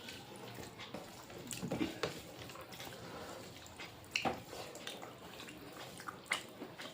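Faint eating sounds: scattered small clicks and smacks of a meal being eaten, a few sharper ones around two, four and six seconds in.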